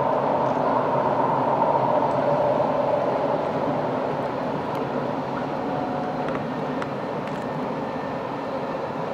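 Rhaetian Railway passenger train running along the line: a steady rumble of wheels on rails that slowly fades as it draws away.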